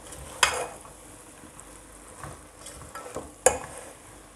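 Red silicone spatula stirring cooked beef mince and chili garlic sauce in a metal pot, the mince sizzling over the heat. Two sharper scrapes or knocks against the pot stand out, about half a second in and near the end, with a few lighter ones in between.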